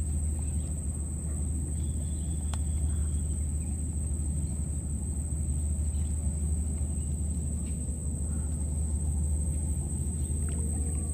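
Steady low rumble with a constant thin high-pitched whine and a few faint clicks.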